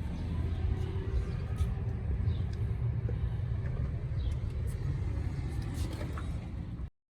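Low, steady rumble with a few faint clicks and ticks over it, cutting off suddenly near the end.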